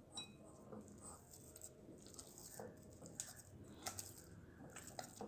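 Near silence with faint soft squishes and a few light ticks of hands kneading oiled maida dough in a bowl.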